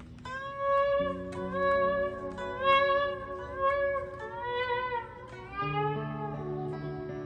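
1999 Fender '62 American Vintage Reissue Stratocaster with Ancho Poblano Custom Shop pickups, played through an amp: a single-note lead phrase with string bends and vibrato that settles onto lower held notes near the end.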